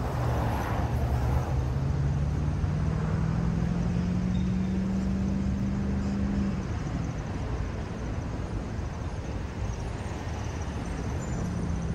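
Road traffic: cars driving across a railroad crossing. One engine's note rises slowly and steadily for about six seconds, then cuts off suddenly.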